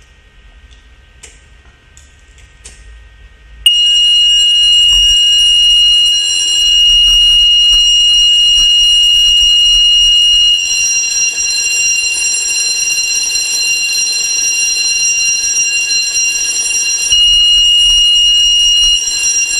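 Horing Lih AHC-871 fire alarm system set off, sounding a loud, steady, high-pitched alarm tone that starts suddenly about four seconds in, after a few faint clicks, and holds. The tone dips slightly partway through and comes back up briefly near the end.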